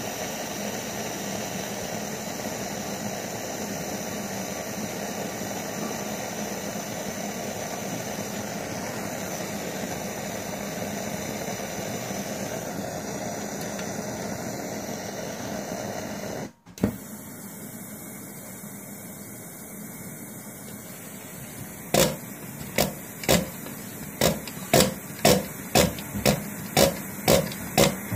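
Brass Daerim 105 kerosene pressure stove burner hissing steadily. About two-thirds of the way through the sound cuts out abruptly for an instant and comes back quieter. Near the end come about a dozen sharp clicks, roughly two a second, as the stove's hand pump is worked.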